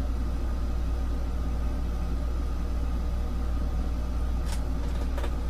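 Steady low hum with no change in level, with two faint short clicks near the end.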